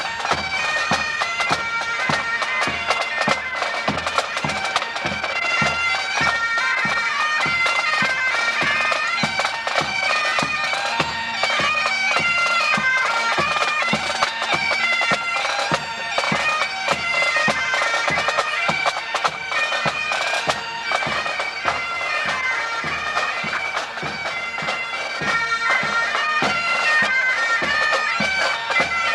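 A pipe band playing: Highland bagpipes carry a melody over their steady drone, with regular drumbeats underneath.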